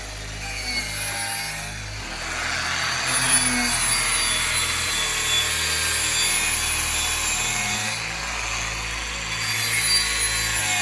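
Power tool stripping paint and weld bead off metal motorcycle handlebars: a loud, even grinding hiss from about two seconds in until about eight seconds in.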